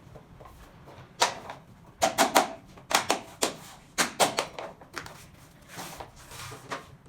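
A quick run of sharp knocks and clicks, about a dozen, mostly in the middle few seconds, from SPC stone-plastic floor planks being tapped and clicked into place.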